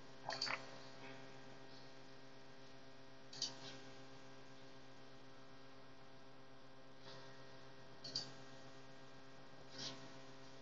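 Steady, faint electrical mains hum made of several held tones, with a few short computer mouse clicks spaced through it.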